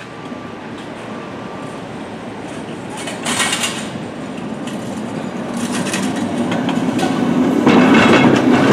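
San Francisco cable car rolling along its rails toward the listener and passing close, a rumble with rattling that grows steadily louder. There is a burst of clatter about three seconds in, and it is loudest near the end as the car goes by.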